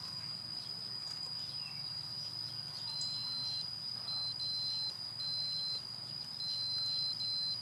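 Digital multimeter's continuity tester beeping in short, broken high tones as its probes touch aluminium foil, showing that the foil conducts. A steady high whine runs underneath.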